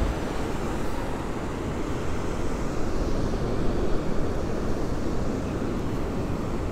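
Wind rushing over the microphone with the sea washing below, a steady noisy rumble that rises in a few louder gusts around three to four seconds in.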